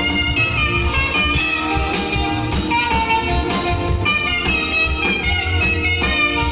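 Live worship band music: a lead saxophone melody over guitar and bass.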